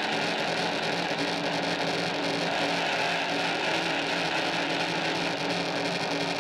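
Noisy, distorted music track: a dense, steady wash of noise with faint sustained droning tones and no clear beat.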